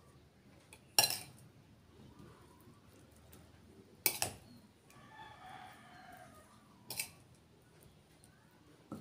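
A metal spoon clinks sharply against ceramic dishes three times, about three seconds apart, while scooping and spreading lumpia filling. A rooster crows once, about five seconds in.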